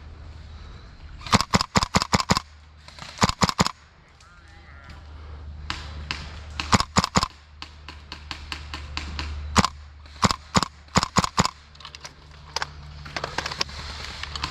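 Airsoft guns firing in several short rapid volleys of about four to six shots each, with a few single shots between, over a steady low rumble.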